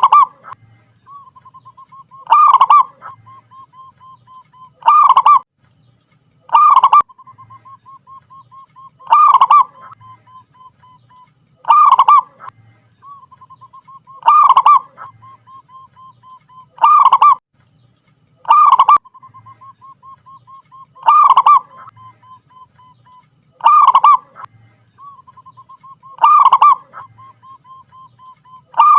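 Zebra dove (perkutut) cooing: a loud coo about every two to two and a half seconds, with soft, rapid runs of short notes between them.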